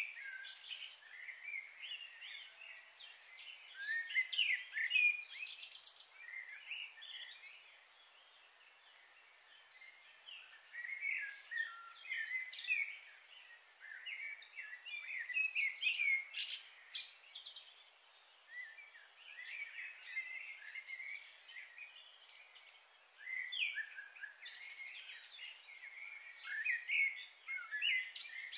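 Wild birds chirping and singing in many short, overlapping calls that come and go in clusters, over a faint steady hiss.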